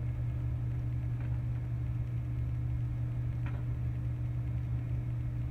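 A steady low hum of background room tone, with two faint short ticks.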